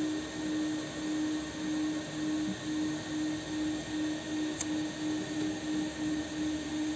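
A steady low machine hum that swells and dips about twice a second, with a single sharp click a little past halfway as a disposable lighter is struck to relight its flame.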